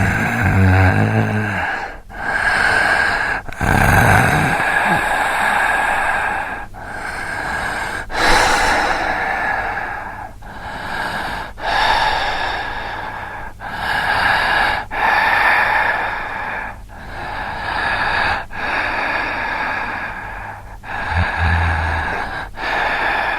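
Horror sound effect of heavy, breathy sighs and breaths repeating about a dozen times, each lasting one to two seconds with short breaks between. A low, groaning voice sounds under the breath near the start, about four seconds in and near the end.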